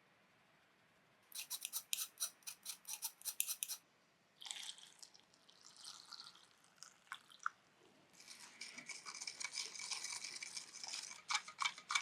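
A utensil scraping and clicking rapidly against a plastic container as uirou batter of flour, sugar and water is mixed, in quick strokes of about five a second, then a softer stretch, then faster, denser scraping near the end.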